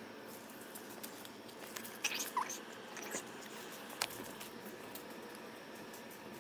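Burning paper plates crackling in open flame on a small grill: a steady hiss with scattered sharp snaps and clicks, the loudest about two and four seconds in.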